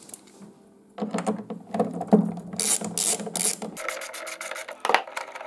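Ratchet handle with a Phillips bit loosening a panel screw. From about a second in there is a rapid run of pawl clicks, and a sharper click comes near the end.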